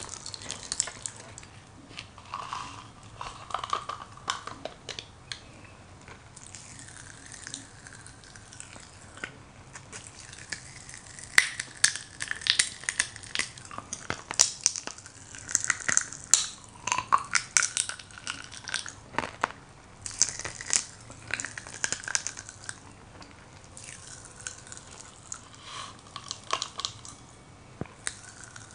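Crack-Ups popping candy crackling and popping in the mouth: an irregular scatter of sharp little pops, thickest about halfway through.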